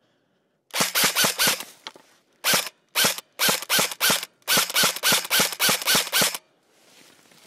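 M4-style airsoft electric rifle firing shots in quick succession, about twenty in several short strings with brief pauses between, starting about a second in and stopping shortly before the end.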